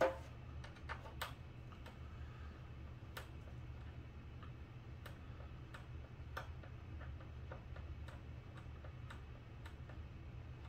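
Light irregular clicks and taps of small hand work on a model-plane wing's servo mount, the screws being backed out and handled; one sharper knock right at the start, over a steady low hum.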